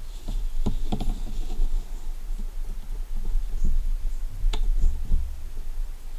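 Handling noise from a Petzl Tactikka Plus headlamp being worked in the hands: a few sharp plastic clicks, the loudest about four and a half seconds in, over low rubbing and rumbling of the lamp body and elastic headband.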